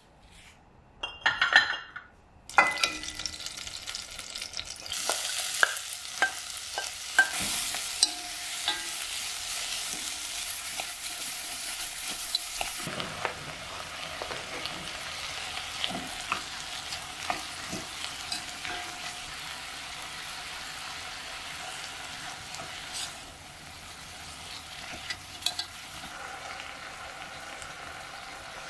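Sliced onion and cubed beef sizzling in hot oil in a pot as they stir-fry. The sizzle starts suddenly about two and a half seconds in and is louder for the first half, with knocks and scrapes from a wooden spatula stirring throughout.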